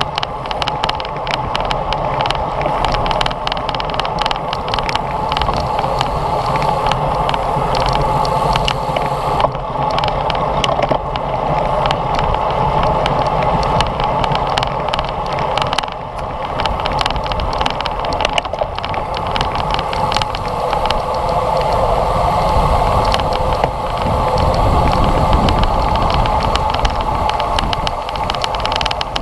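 Wind rushing over a bicycle-mounted GoPro's microphone at speed, with road rumble and a constant light rattle. A brief dip in the noise about halfway through.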